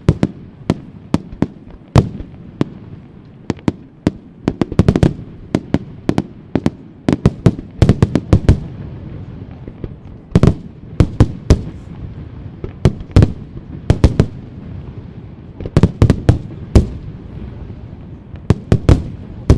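Aerial fireworks display: shells bursting in a rapid, irregular string of loud sharp bangs, often several within a second, with denser clusters around five, eight, eleven, sixteen and nineteen seconds in.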